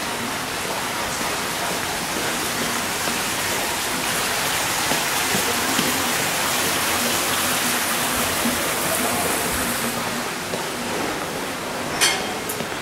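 A steady rushing noise, even like running water, with a single sharp click near the end.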